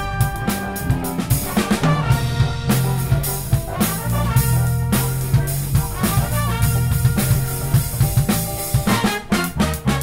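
Big band playing a funk groove live. The drum kit and electric bass lay down the beat, with the trumpet and trombone section playing over it.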